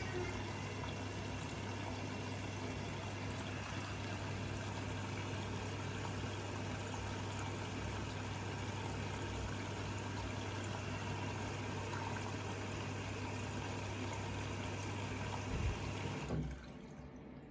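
Siemens washing machine filling with water: a steady rush of water with a low hum, which cuts off suddenly after a couple of knocks near the end.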